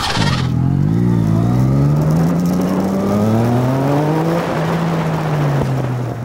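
Engine accelerating through the gears: its pitch climbs slowly, drops at a gear change about three seconds in, climbs again, then levels off and falls away near the end.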